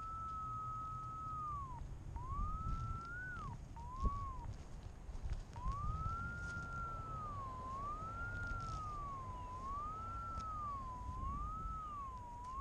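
Cable locator receiver's audio tone (Vivax-Metrotech vLoc3-Pro), a single whistle-like tone whose pitch follows signal strength as the receiver is swept over a buried electric service line. It holds steady at first, breaks off twice, then wavers up and down about once every two seconds.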